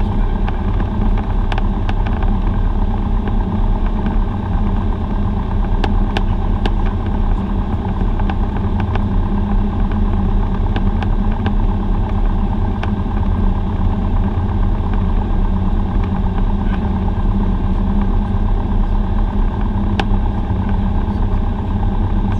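Cessna 172's single piston engine and propeller running steadily at low taxi power, heard from inside the cabin, with a few faint sharp clicks.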